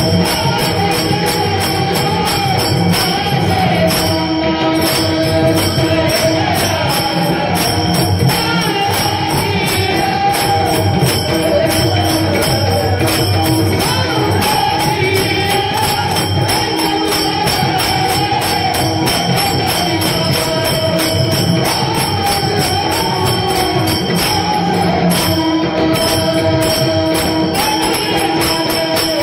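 Devotional bhajan music: small hand cymbals struck in a fast, steady rhythm with a drum, over a held drone and a wavering melody line.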